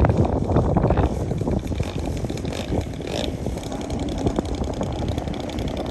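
Radio-controlled model biplane's engine throttled back as it touches down and rolls out on grass, with wind rumbling on the microphone, heaviest in the first second.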